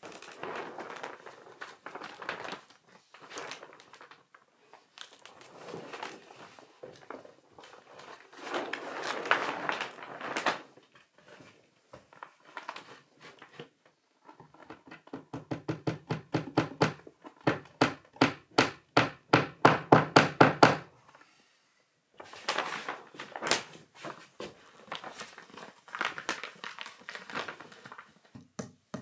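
Plastic vapour barrier sheeting rustling and crinkling as it is handled and pressed against the roof framing. In the middle comes a fast, regular run of hammer strikes, about four or five a second and louder than the rustling, and the strikes start again near the end.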